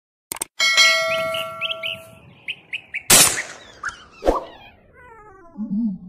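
Subscribe-button animation sound effects: a quick double click, then a bell-like ding that rings on under a string of short falling chirpy notes, a sharp swish about three seconds in, and falling notes running into a music sting near the end.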